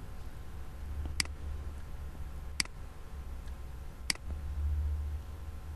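Three sharp computer mouse clicks, about a second and a half apart, over a low steady hum.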